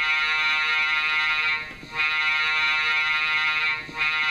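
Diesel air horn from the ESU LokSound sound decoder of an HO-scale F7A model locomotive, played through the model's small speaker. It gives two horn blasts of about two seconds each with a short break between them, and a shorter blast begins near the end, in a long-then-short horn pattern.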